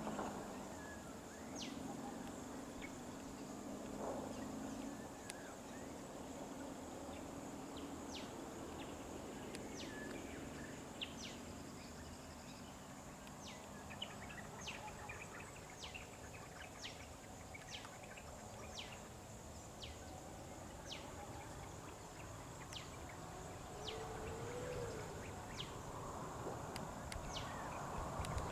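Roadside ambience dominated by a steady high-pitched insect drone, with a short falling chirp repeated about once a second through most of it. A vehicle engine idles low in the first few seconds, and engine noise swells again near the end.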